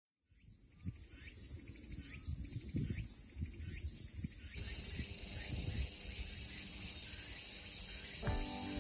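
Cicadas shrilling in a steady high-pitched chorus that fades in at the start and grows louder about halfway through, with irregular low knocks and rumble underneath. Music begins just before the end.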